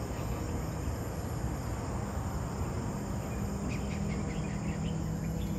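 Tropical forest ambience: insects and short high chirps scattered through, growing busier a little after halfway, over a steady low rumble, with a low steady hum joining about two seconds in.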